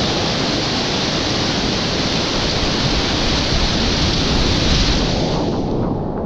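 Whitewater rapids rushing loudly and steadily around the kayak. About five and a half seconds in, the bright hiss drops away and leaves a muffled low rush.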